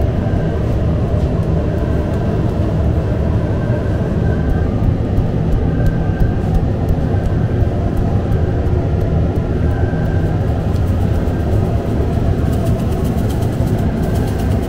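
Steady low rumble of bakery machinery. Near the end a light patter runs over it as sesame seeds are shaken from a can onto the dough.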